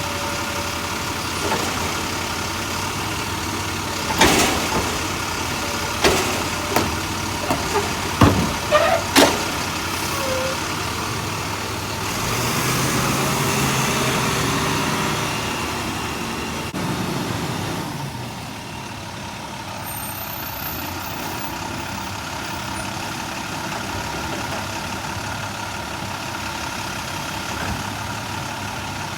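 Automated side-loading garbage truck working at the curb: its diesel engine runs steadily, with several sharp clanks and bangs about four to nine seconds in. Then the engine revs up for a few seconds and drops back to a steady idle.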